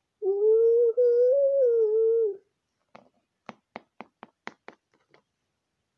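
A child's voice holding one long, slightly wavering note for about two seconds, then a plastic toy animal figure tapped along a wooden floor in about eight quick hops, roughly four a second, as it is made to walk.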